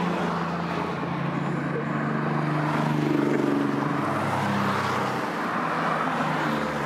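Sports cars driving past one after another, engines running steadily, with one passing close about three seconds in.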